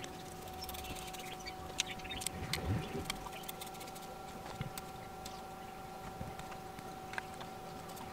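Hand screwdriver turning screws into a plastic drill housing, with scattered light clicks and handling sounds, a small cluster about two to three seconds in. A steady faint hum runs underneath.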